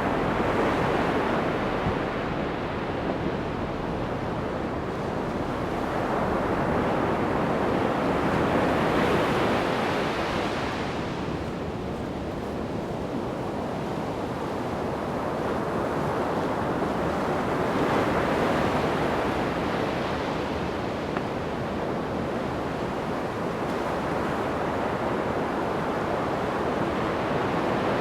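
Ocean surf breaking on a sandy beach: a steady wash that swells and ebbs as each wave comes in, cresting about every eight or nine seconds, with some wind on the microphone.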